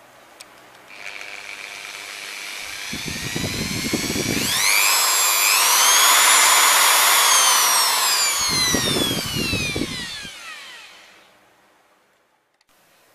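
Electric drill running free: its motor whine rises as it speeds up, holds, then falls away as it slows and stops. Two short low rumbles come through partway in and again near the end.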